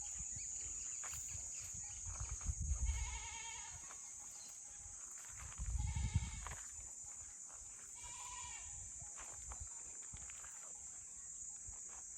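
Goats bleating, several short calls a few seconds apart. Two low rumbling bumps come with the first two calls and are the loudest part.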